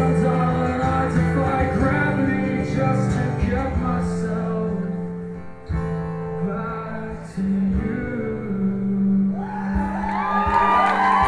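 Solo electric guitar strummed live, with chords sustaining and a male voice singing the closing lines of the song. Audience whoops and cheers start coming in near the end.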